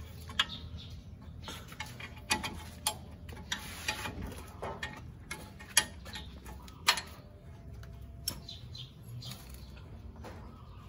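Irregular metallic clicks and clinks of a wrench working the front brake caliper's mounting bolt as the caliper is taken off, two of them sharper and louder around the middle. A steady low hum runs underneath.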